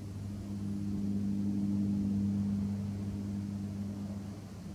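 Distant engine drone: a steady low hum that swells about two seconds in and eases off near the end.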